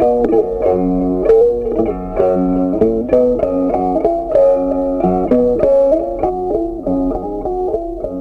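Background music: an instrumental tune of plucked guitar notes, several notes a second.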